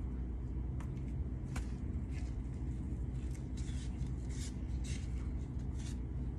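Faint short scrapes and rustles of a knife trimming raw chicken held in plastic-gloved hands, over a steady low hum.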